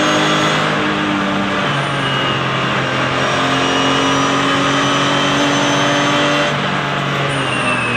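Porsche 996 Cup race car's flat-six engine running hard at high revs, heard from inside the cockpit. Its pitch steps several times, as at gear changes, and it eases off about six and a half seconds in.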